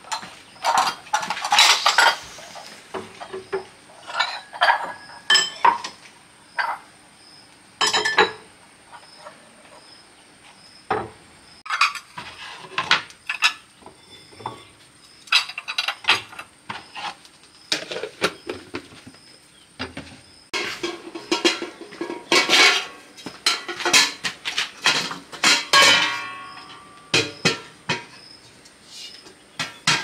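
Irregular clinks, clatter and knocks of hard objects, metal among them, being handled and set down, busiest in a run of strikes in the second half, with one short ringing clink near the end.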